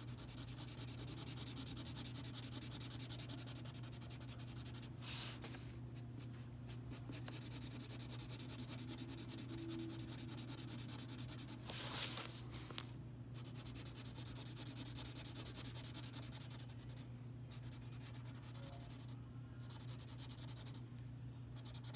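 Black felt-tip marker scratching on paper in many quick short strokes as a drawing is filled in, over a steady low hum.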